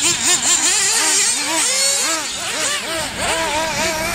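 Small engines of 1/8-scale off-road RC buggies revving up and down, several at once, in quick rising and falling whines, with a steady lower drone underneath.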